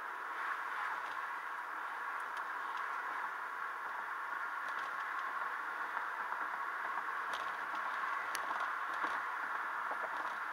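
Steady road and tyre noise heard from inside a moving car, a smooth hiss with a few faint clicks.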